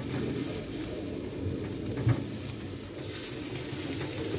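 Jerk chicken sizzling on a charcoal grill grate, a steady crackle, with one short low bump about two seconds in.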